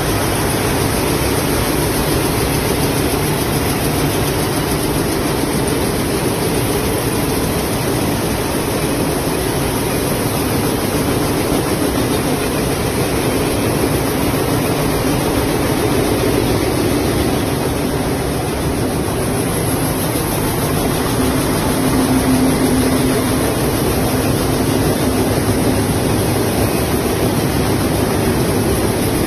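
Steady, loud din of many weather-strip production machines running together, a dense mechanical hum with no single beat standing out.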